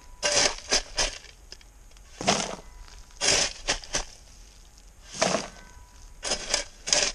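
A spade scraping and digging into a heap of biochar, the charcoal pieces crunching, scoop after scoop being shovelled into a plastic tub. The scoops come as a string of short crunches, several in quick succession near the end.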